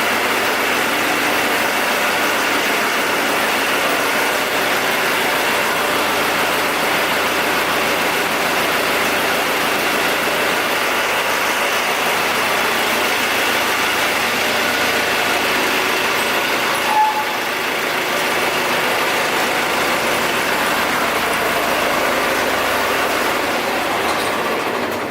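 Diesel generator set engine running steadily at constant speed.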